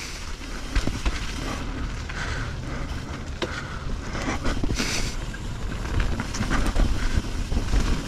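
Mountain bike riding along a dirt trail: wind buffeting the microphone over a steady low rumble of tyres on the ground, with scattered light clicks and rattles from the bike.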